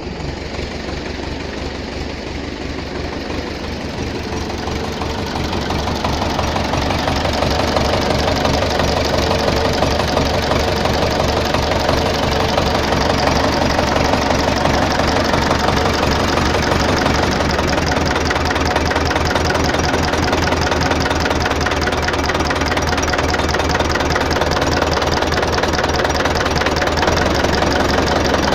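Rebuilt tractor diesel engine running, with its usual diesel clatter. It picks up speed about five seconds in, then runs steadily at the higher speed. It has a new piston group, connecting-rod bushings and cylinder head, fitted to cure a knock.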